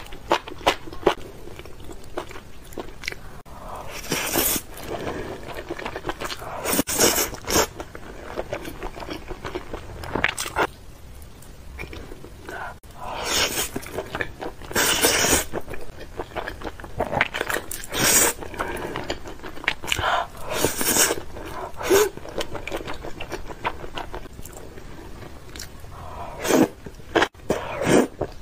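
A person eating saucy noodles close to the microphone: steady wet chewing and mouth-smacking clicks, broken every few seconds by louder slurps as mouthfuls of noodles are drawn in.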